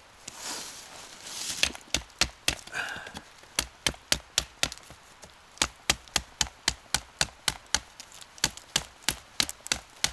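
A knife blade striking wood again and again, chopping damp bark off a pine stick for fire kindling. The knocks come quick and even, about three a second, after a brief scraping rustle at the start.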